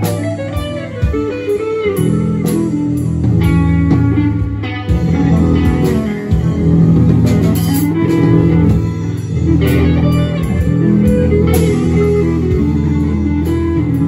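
Live band playing: electric guitar lead with bending notes over bass guitar, drums with cymbals, and keyboard.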